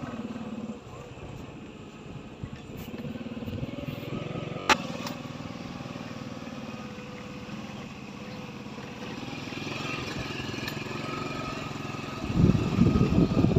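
Motorcycle engine running steadily while riding along a rough dirt road. There is a sharp click about five seconds in, and a loud, rough rumble for the last second or so.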